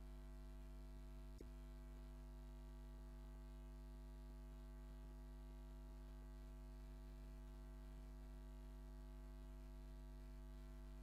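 Near silence: a faint steady electrical mains hum in the recording, with one faint click about a second and a half in.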